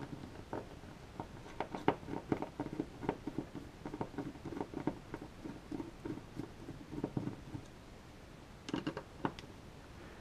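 Hand screwdriver turning out the screws that clamp a dehumidifier's aluminium heatsink over its Peltier module: a run of small, irregular clicks and scrapes, with a few louder clicks about nine seconds in.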